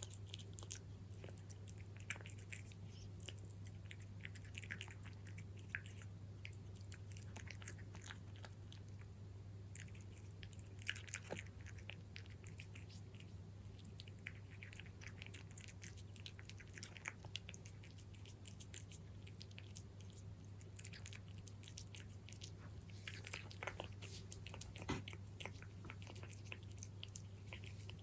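A cat crunching and chewing dry kibble, Kalkan fish and meat mix, with irregular crisp crunches, over a faint steady low hum.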